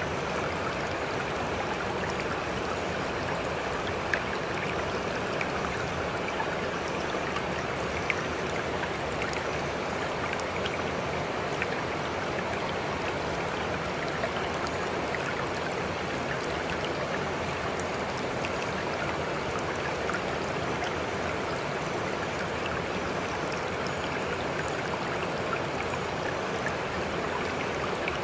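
Steady sound of running water, like a flowing stream, unchanging throughout, with a few faint sharper drips or ticks.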